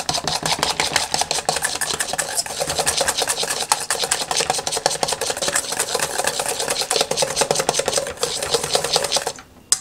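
Small wire whisk beating a liquid ice cream mixture in a stainless steel bowl, the wires scraping and clicking rapidly against the metal. The whisking stops shortly before the end.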